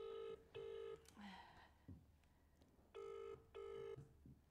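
British telephone ringing tone heard through a mobile phone's speaker: two double rings, each a pair of short beeps, about three seconds apart. It is an outgoing call ringing and not yet answered.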